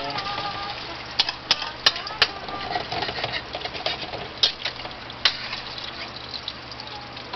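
Eggs frying in hot oil: a steady sizzle with sharp, irregular pops of spattering oil.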